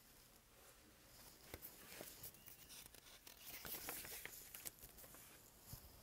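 Faint rustling and crinkling of a picture book's paper pages as a page is turned by hand, with a few small clicks, loudest about four seconds in.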